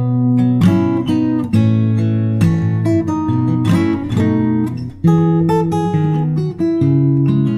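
Background music led by strummed acoustic guitar chords, with a new chord struck every half second or so.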